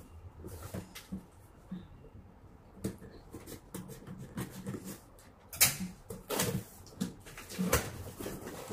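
Scissors cutting through the packing tape of a cardboard parcel, with scattered clicks and scrapes, then louder crackling and rustling of cardboard from about five and a half seconds in as the box flaps are pulled open.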